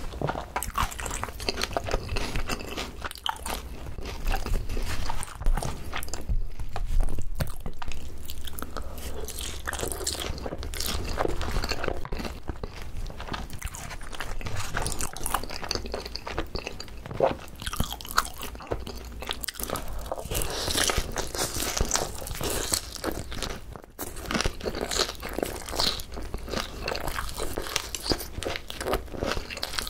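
Close-miked chewing and crunching of boneless Korean fried chicken topped with shredded green onions, with repeated bites throughout.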